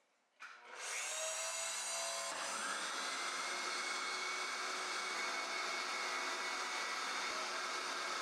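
Wood router switched on with a click, its motor winding up over a second or two to full speed and then running at a steady high whine.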